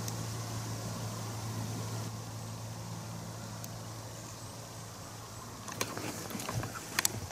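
A steady low hum, engine-like, under quiet outdoor ambience. Near the end there are a few sharp clicks and rustles, the loudest about seven seconds in.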